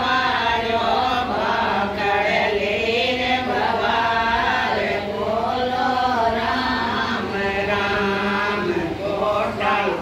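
A group of women singing a Rajasthani devotional bhajan together, a chanted melody with long held notes that continues without a break.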